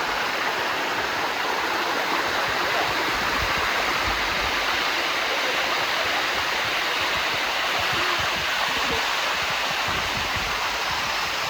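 Water rushing steadily down a waterfall cascade, a constant even hiss.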